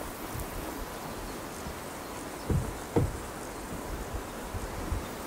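Outdoor summer ambience with insects buzzing steadily, and two dull thumps about half a second apart a little past the middle.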